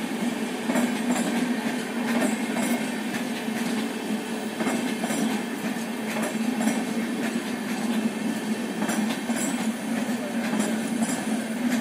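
Indian Railways LHB sleeper coaches rolling past on the rails: a steady rumble of wheels and running gear, with scattered clicks as the wheels cross rail joints.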